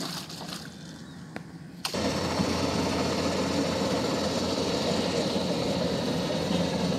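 A few light knocks and rustles, then about two seconds in a steady engine drone from a Kubota DC-105X combine harvester running in the rice field takes over abruptly.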